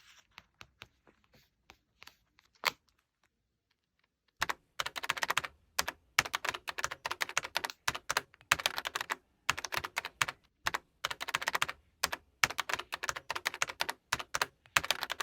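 Paper being handled: a single sharp click, then from about four seconds in, dense runs of rapid crackling clicks in short bursts, like paper pieces being pressed, folded and flicked.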